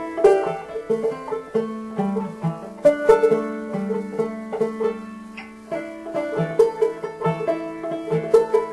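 Banjo picking: a quick, steady run of plucked notes that eases off for a moment about five seconds in, then picks up again.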